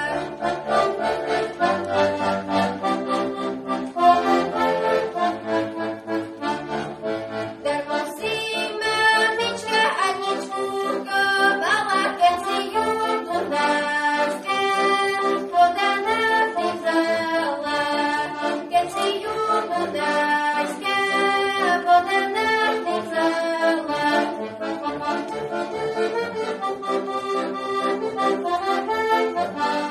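Accordion playing a Slovak folk tune solo, a moving melody over a steady bass accompaniment.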